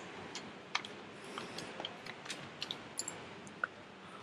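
Paper ticket rustling and crinkling as it is unfolded and handled, with scattered light clicks.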